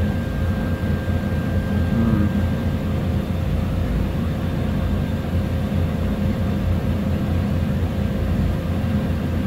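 Steady low rumble of running machinery in a workshop, even in level, with a faint steady high whine over it that fades out about three seconds in.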